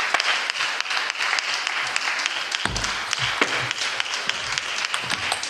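Table tennis balls clicking sharply and irregularly off bats and tables over a steady hiss of hall noise. From about halfway in, low thumps of players' feet on the court floor join the clicks as a rally is played.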